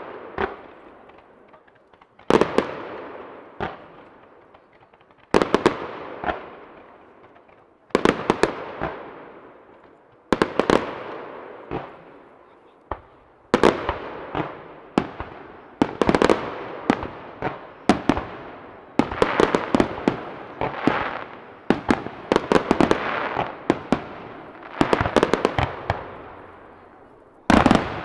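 Aerial fireworks shells bursting, each sharp bang followed by a long rolling echo that dies away. The bursts come every two to three seconds at first, then from about halfway on they come thick and overlapping, several bangs a second.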